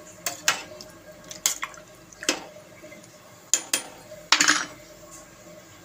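A utensil clinking against a steel pot of potato sticks in water, about seven sharp clinks, some in quick pairs.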